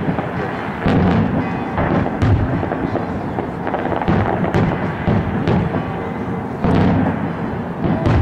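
Daytime fireworks barrage: a continuous crackle of bursting shells and firecrackers, with a loud bang roughly every second.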